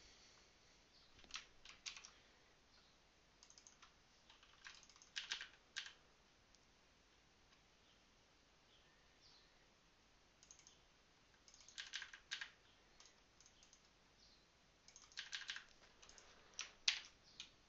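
Faint computer keyboard typing, keys tapped in short bursts with pauses between them, as code is edited.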